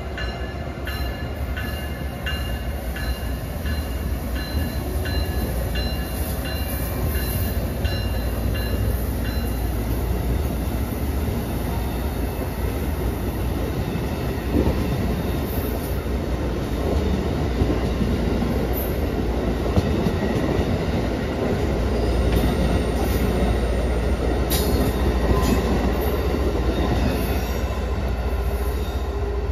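Amtrak passenger train of stainless Amfleet coaches rolling past at low speed on a curve, with a steady rumble of wheels on rail and scattered clicks of wheels over joints. Faint wheel squeal sounds through the first several seconds.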